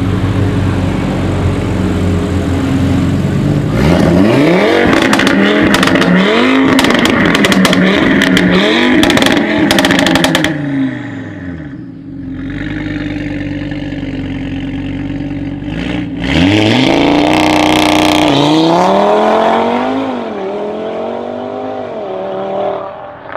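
Audi RS3 8V's turbocharged five-cylinder engine, breathing through a decatted Armytrix exhaust, being revved repeatedly from idle. The first round of revs is peppered with sharp exhaust crackles and pops. It drops back to idle about halfway through, then revs up again in a second round near the end.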